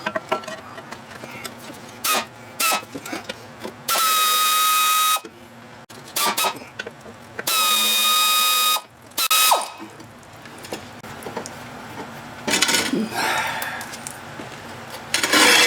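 Cordless power driver spinning out the gas tank mounting bolts. It makes two runs of a little over a second each, with a steady whine that drops as the motor stops. Light knocks and clinks of tools and parts come in between.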